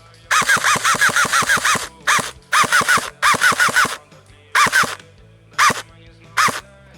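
Airsoft electric gun fired in bursts close by, about nine shots a second: one long burst of roughly a dozen shots, then several shorter bursts and single shots, each shot a sharp crack with a brief mechanical twang from the gearbox.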